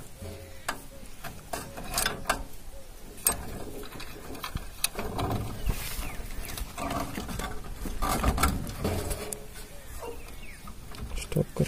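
Screwdriver and wires being worked at the terminal screws of a motor starter's auto switch: irregular small clicks, scrapes and rustles of handling as the wires are fitted and tightened.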